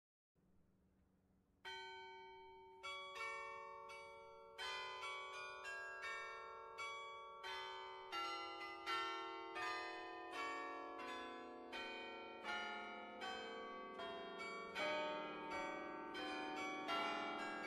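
Background music: a slow melody of single struck notes, each ringing out and fading, starting after a near-silent second and a half and growing fuller toward the end.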